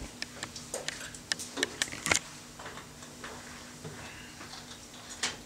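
Plastic water bottle crackling and clicking as it is handled after a drink: a run of sharp, irregular clicks in the first two seconds, a few fainter ones after, and one more near the end.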